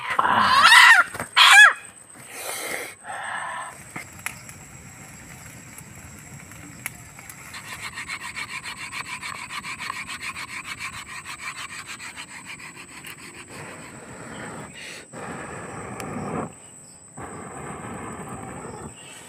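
A chicken squawking loudly in the first two seconds. Then a knife scraping against wood in a steady rhythm of about four strokes a second.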